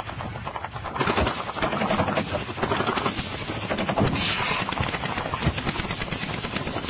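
Rapid automatic gunfire, a dense run of shots with no break, surging louder about a second in and again about four seconds in.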